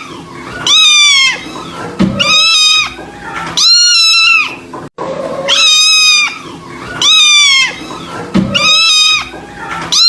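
Kitten meowing over and over: six loud, high-pitched cries, one about every one and a half seconds, each dipping in pitch at its end.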